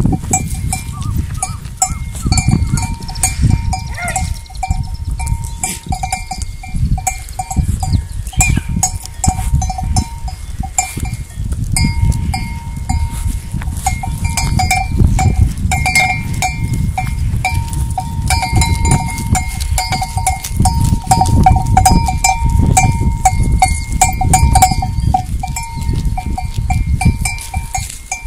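Bells on a flock of goats and sheep clanking and jingling continuously as the animals move, over a loud low rumble. A goat bleats a few times in the first half.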